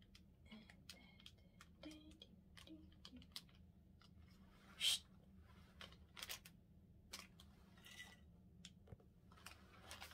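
Faint rustles and small clicks of a plastic candy-kit packet being handled, with one louder crinkle about five seconds in.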